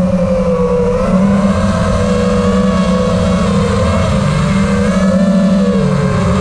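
Five-inch FPV freestyle quadcopter's brushless motors (PyroDrone Hyperlite 2207, 2522 KV) spinning three-blade props, heard from the onboard camera: a steady buzzing whine that rises and falls a little in pitch with the throttle and dips briefly near the end, over a rush of air.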